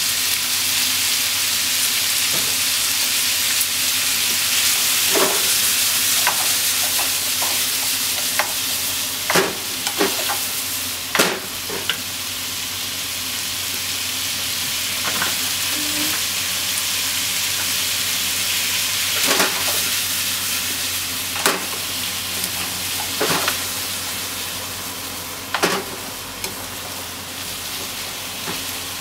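Pork belly, onion and shimeji mushrooms sizzling steadily in a frying pan, with a dozen or so sharp clacks of wooden cooking chopsticks knocking against the pan as the stir-fry is turned.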